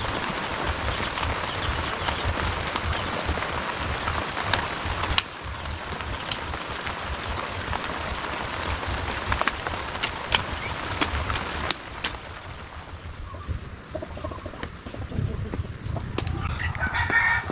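A steel hoe chops and scrapes into wet garden soil in sharp, irregular strikes, over a steady hiss that stops about five seconds in. After a cut there is a steady high-pitched insect drone, and near the end a rooster crows.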